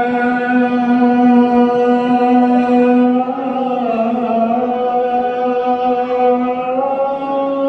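A voice chanting one long held note, its pitch shifting slightly about three seconds in and again near the end.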